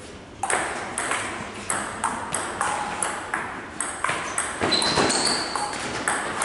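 A table tennis rally: the ball clicking off the bats and bouncing on the table, about two hits a second, a little quicker in the second half, starting with the serve about half a second in.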